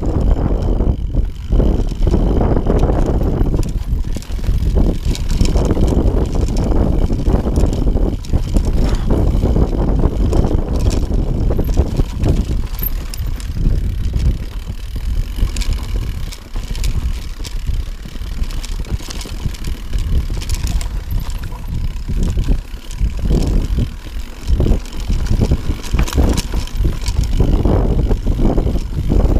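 Mountain bike descending a rocky trail: tyres rumbling and clattering over stones, with frequent sharp knocks and rattles from the bike as it hits rocks, over a heavy wind rumble on the microphone.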